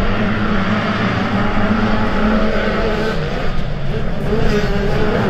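Motocross bike engines running hard on the track, revving up and down as the riders work the throttle.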